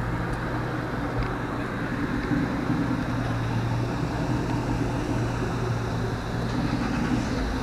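Pickup truck engine idling with a steady low hum, under an even rushing noise.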